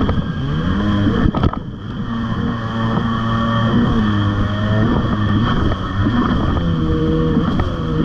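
1994 Tigershark 640 jet ski's two-stroke engine running under way, its revs dipping and climbing again several times as the throttle is eased and reopened, over the hiss of water spray.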